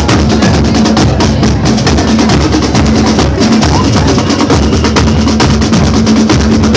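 Marching band playing loudly, drums to the fore: a rapid run of drum strokes over a held low note.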